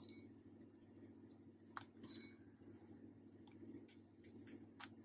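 Near silence: a faint steady low hum with a few soft, scattered clicks as walnut pieces are crumbled by hand and dropped into cake batter in a glass bowl.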